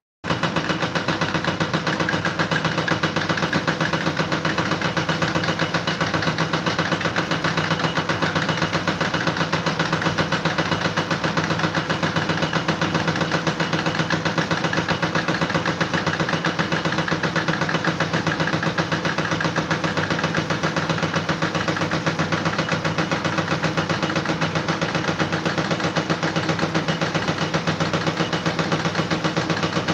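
A steady engine running with a fast, even pulse, unchanging throughout; it starts just after a brief cut to silence.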